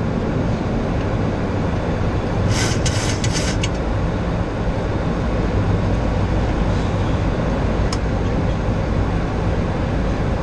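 Steady cockpit noise of a Boeing 737-800 on approach: a low, even rush of airflow and engine drone. A short run of crackles comes about two and a half seconds in and lasts about a second, and a single click comes near eight seconds.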